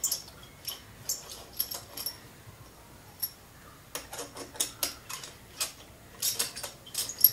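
Hex bolts on a 1½-inch butterfly valve body being unscrewed with a T-handle hex key: short squeaks and clicks from the dry threads, scattered at first and coming more closely together from about four seconds in.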